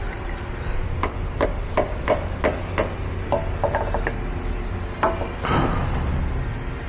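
Hammer blows on a forklift hydraulic cylinder part: a quick run of about six sharp strikes, roughly three a second, then a few lighter taps and one more hard blow about five seconds in, tapping the part into position.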